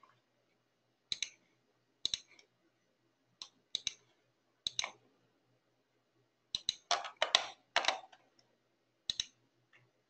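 Computer mouse button clicks, sharp and short, often in quick pairs, coming about once a second at irregular spacing with a denser run of clicks about seven seconds in.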